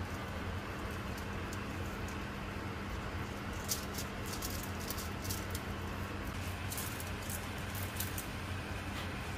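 A silicone pastry brush swishing and dabbing across a foil-lined baking tray, giving short scratchy crinkles of foil that come more often after the first few seconds, over a steady low hum.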